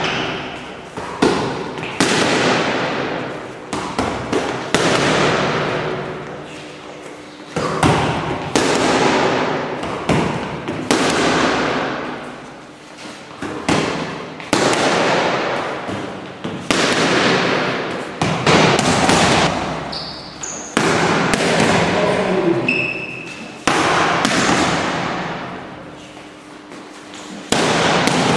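Punches smacking into leather focus mitts, a sharp hit every second or two with shorter ones between, each ringing out in the echo of a gym hall. A few brief shoe squeaks on the floor come near the end.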